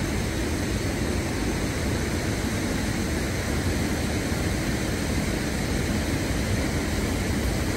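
Steady rushing of a flowing river, an even noise that barely changes in level.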